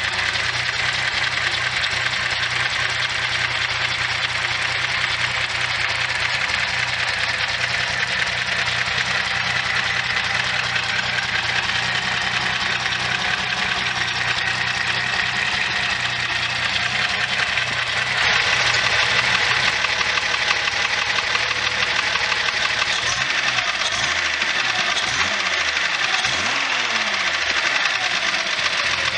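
Nissan Skyline 2000GT-X's twin-SU-carburettor straight-six idling steadily with the bonnet open: an even, settled idle with light mechanical clatter from the top end. It grows a little louder about two-thirds of the way through.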